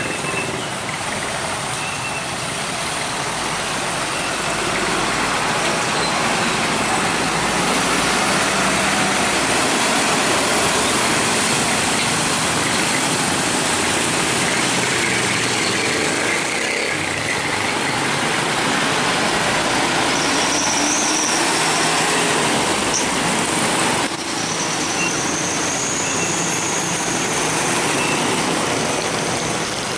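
Heavy road traffic with trucks passing close by: steady engine and tyre noise that builds over the first few seconds. It carries a few brief high-pitched squeals in the second half.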